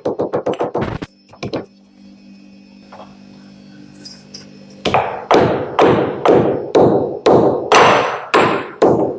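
Pestle pounding galangal root in a mortar to crush it: quick rapid strokes that stop about a second in, a short lull, then from about five seconds in heavier, regular strokes about two a second.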